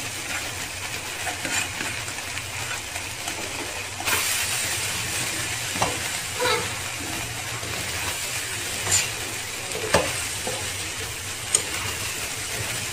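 Cooked rice frying in a wok with diced vegetables and sausage: a steady sizzle, with a slotted metal spatula scraping and tapping against the pan as the rice is stirred. The sizzle gets louder about four seconds in.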